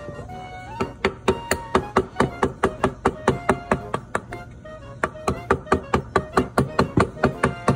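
Music with a steady knocking beat, about four knocks a second, that pauses briefly just past the middle.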